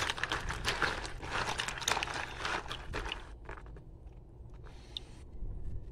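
Water sloshing and crab shells clicking and knocking together as a hand stirs mud crabs in a plastic basin of water: a dense run of small splashes and clicks that dies away after about three seconds, leaving a few faint taps.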